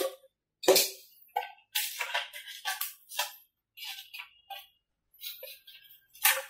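Irregular clicks and rustles of hands pushing wires and parts into the foam fuselage of an RC model jet, with short pauses between; the sharpest clicks come about a second in and near the end.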